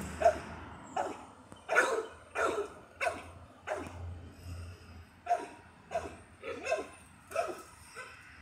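A dog barking over and over, about a dozen short barks spaced roughly half a second to a second apart.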